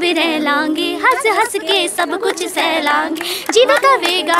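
Schoolgirls singing a song together into a handheld microphone, several young voices at once.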